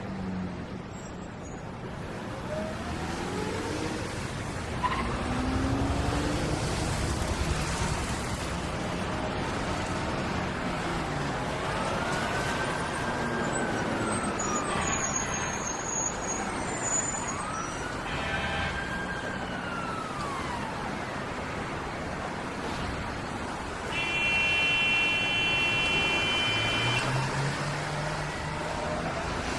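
City street traffic: a continuous traffic hum, with a siren wailing slowly up and down twice in the middle. Near the end a steady held tone sounds for about three seconds, then a vehicle passes with its engine pitch rising.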